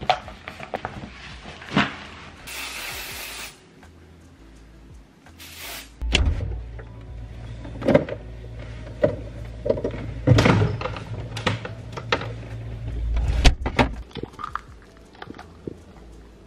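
Lo-fi hip-hop background music over a run of knocks and clunks from things being handled: items going into a backpack, then kitchen clatter, with a short hiss a couple of seconds in.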